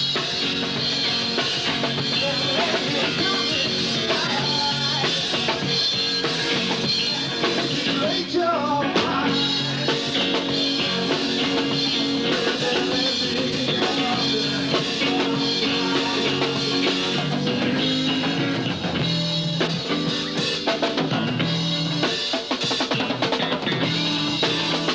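Rock band music with a drum kit playing.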